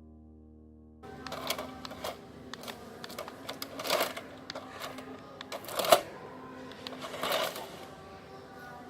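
Background music cuts off about a second in, then a remote-control toy car clatters and clicks, with irregular rattles and a few louder knocks and a faint motor hum in places.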